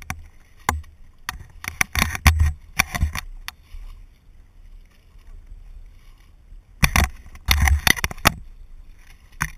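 Wading steps through flooded salt-marsh grass, heard as irregular bursts of splashing and swishing with quieter gaps between them, over a low wind rumble on the microphone.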